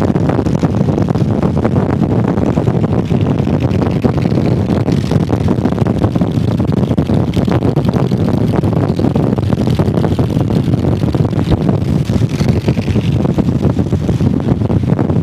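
Motorcycle engine running steadily while riding, with no gear changes or revving.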